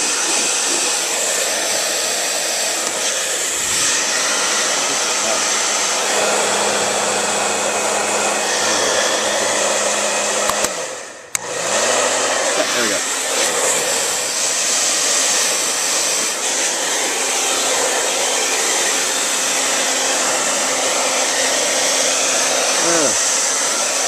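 Hand-held hair dryer blowing steadily into an open desktop computer case to clear out dust. About halfway through it dies away for a moment, then comes back on after a click.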